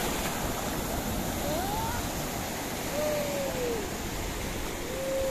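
Sea surf breaking and washing up the beach, a steady rush. Over it come a few short wavering voice sounds: one rising about a second and a half in, one falling about three seconds in, another near the end.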